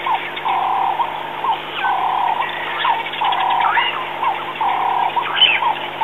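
Wild animal calls: a half-second call repeats about every second and a half, with short rising bird chirps between the calls. A low steady hum runs underneath.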